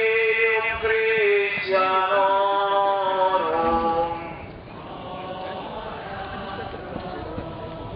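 Voices singing a slow chant-like hymn in long held notes, the melody stepping down in pitch about three and a half seconds in, then carrying on more quietly.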